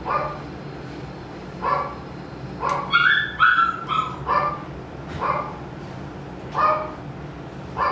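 Poodle puppy whining and yelping in short high-pitched cries, roughly one a second, a few of them longer and falling in pitch, as its retained puppy canine tooth is being extracted.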